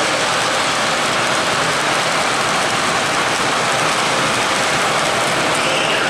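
Steady rolling hiss and rumble of O-gauge model train cars, loaded coal hoppers, running on three-rail track. The level holds even as the last car clears the spot.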